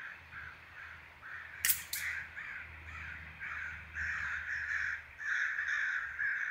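Crows cawing again and again. About a second and a half in, an air rifle fires: two sharp cracks a quarter of a second apart, the loudest sound here.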